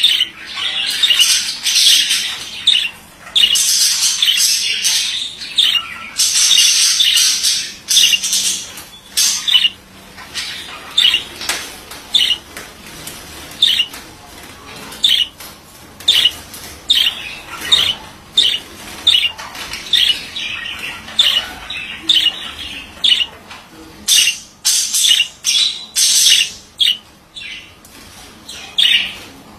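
Male budgerigar warbling and chattering, with dense runs of song in the first few seconds and again about seven seconds in, then a string of separate sharp chirps and squawks.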